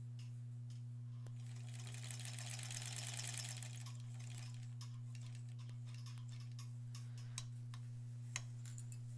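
Electric sewing machine stitching through layered fabric in a fast, even run of needle strokes lasting about two seconds, starting about two seconds in, with a few single clicks later on. A steady low hum runs underneath.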